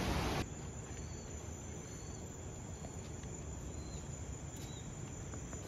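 A loud steady rushing noise cuts off abruptly less than half a second in. It leaves quiet outdoor ambience: a low steady hiss with a few faint, short, high chirps.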